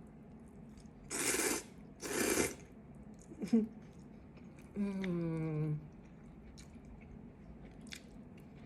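Two short slurps of cold noodles, each about half a second. Later a brief voiced sound and a falling 'mmm' hum of enjoyment lasting about a second.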